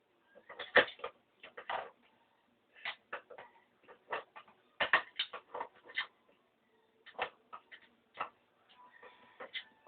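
Irregular light clicks and taps of the flat iron's parts being handled and fitted during disassembly, about a dozen spread unevenly with short pauses between them.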